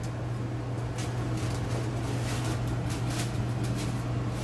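Tissue paper rustling and a cardboard shoebox being handled in light, irregular crinkles, starting about a second in, over a steady low hum.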